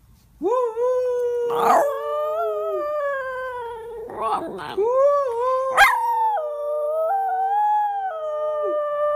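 Miniature schnauzer howling in long, held, wavering howls that start about half a second in, joined by a second howling voice at a different pitch. There is a brief break of yelps about four seconds in before the howling resumes.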